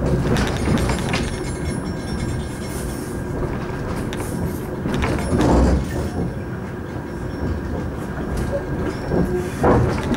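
A suburban train running, heard from inside the carriage: a steady low rumble with a few louder knocks of the wheels over rail joints, the strongest about halfway through and again near the end.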